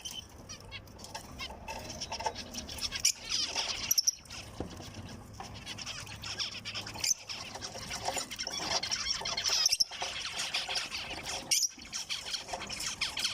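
Several zebra finches calling and chirping: many short, high, overlapping calls with scattered sharp clicks.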